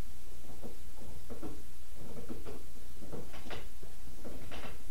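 Paper rustling and being handled in short, irregular bursts, over a steady low hum.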